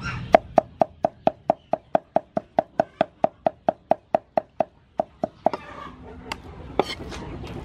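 Steel cleaver chopping pork and diced potato on a wooden chopping board, mincing them together in a fast even rhythm of about four to five knocks a second. The chopping stops about five seconds in, leaving a softer rustling noise with a few stray knocks.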